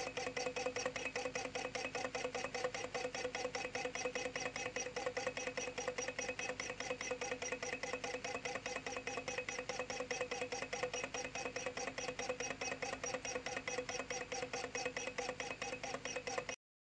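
Low temperature Stirling engine running steadily, its flywheel, crank and displacer linkage making a rapid, even ticking, with a steady tone beneath it. The sound cuts off suddenly near the end.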